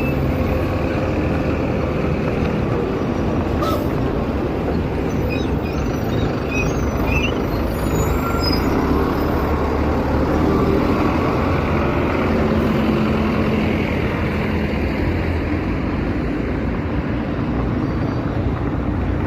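Steady urban traffic noise: trucks, buses and cars passing, heard from a moving bicycle.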